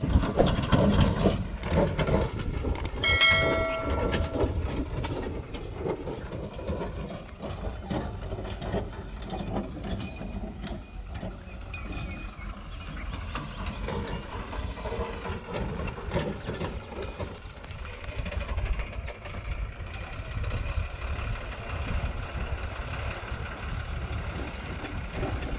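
Heavy diesel engines running: an Ashok Leyland tipper lorry and a JCB 3DX backhoe loader working on a muddy dirt site, as a steady low rumble. A horn sounds once for about a second, about three seconds in.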